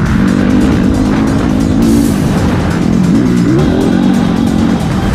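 Motocross bike engine running hard, its pitch rising and falling with the throttle, under background music.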